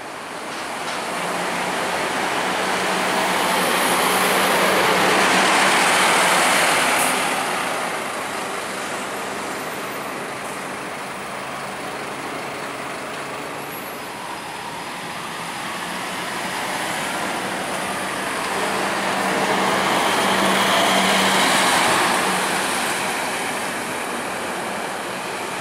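Scania K230UB single-deck diesel city bus pulling away and driving off amid road traffic, its engine a steady low drone under tyre and traffic noise. The noise swells twice, a few seconds in and again near the end.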